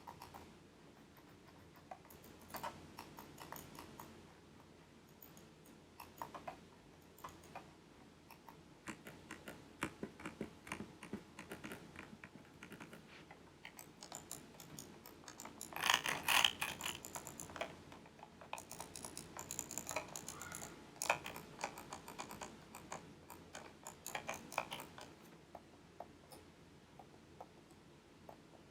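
Computer mouse buttons clicking in quick irregular runs, with a louder, denser flurry of clicks about halfway through.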